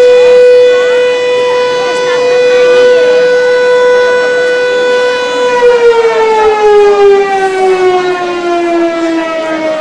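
Mechanical siren sounding one loud, steady tone, then about halfway through beginning to wind down, its pitch sliding slowly lower.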